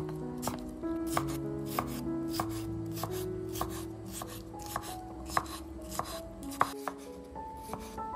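Chef's knife dicing pickled cucumber on a wooden cutting board, about three sharp strikes a second, over soft background music.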